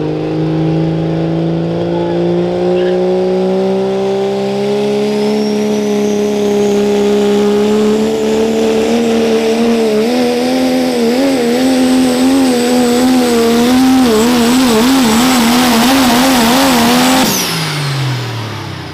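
Pro stock diesel pulling truck, a Ford pickup, running flat out under load on the sled. The engine note climbs steadily with a high whistle above it, then wobbles rapidly up and down for several seconds, and falls away sharply near the end.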